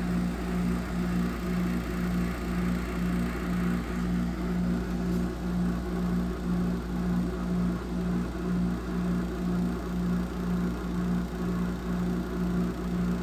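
A 2008 Frigidaire 6,500 BTU window air conditioner running: a steady, noisy hum with a low drone that pulses evenly about two to three times a second. The unit is still coming up to full cooling, and the owner suspects it is low on refrigerant charge.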